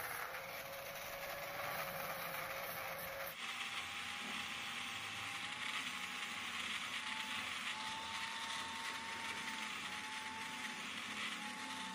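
Angle grinder running with an abrasive disc, grinding rust off a steel scissor blade: a steady motor whine over a grinding hiss. About three seconds in, the whine jumps higher and the hiss grows stronger.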